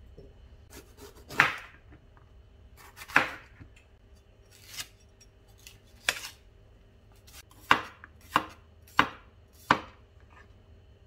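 A wide-bladed kitchen knife chopping capsicum on a wooden cutting board: sharp knocks of the blade hitting the board at irregular intervals, with four in quicker succession near the end.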